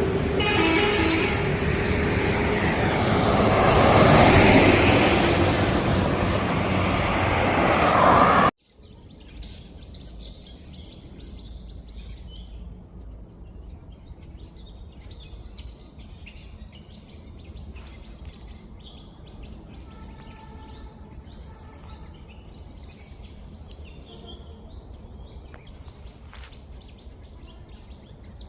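A loud, steady rushing noise for about eight seconds that cuts off abruptly, then forest ambience with many birds chirping and calling over a low background hiss.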